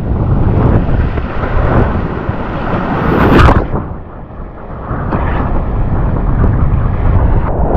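Strong wind buffeting the camera microphone, with the rush of choppy water, as a wing foiler rides. About three and a half seconds in comes a loud splash as the rider falls into the water with the wing, then the sound drops for a moment before wind and churning water carry on.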